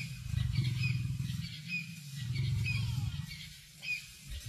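Bird chirping over a low rumble that swells and fades. The chirps are short and come about twice a second.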